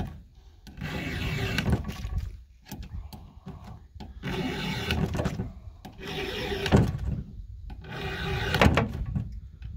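Flat file rasping across the rakers (depth gauges) of a Husqvarna 572 XP chainsaw chain, one full stroke per raker: a series of separate strokes, each about a second long, with short pauses between.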